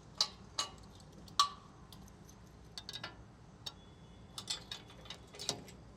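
Scattered light clicks and clinks of metal parts being handled as the mixer's latch guard is fitted against its sensor, irregular and not a steady rhythm, the sharpest about one and a half seconds in.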